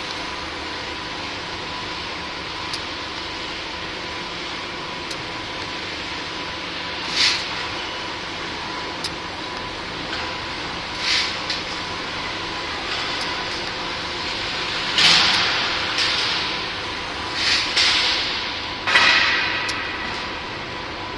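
TIG welding of titanium mesh to a titanium frame: a steady hiss with a faint high steady tone, broken by several short hissing bursts in the second half as the arc is struck and stopped along the seam.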